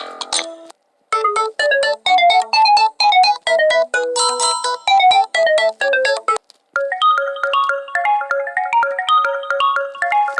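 LG Stylo 4 phone ringtones playing one after another. The end of one tone gives way, after a brief gap, to a quick, bright bell-like melody. After another short break a different tune follows, with one low note repeating under it.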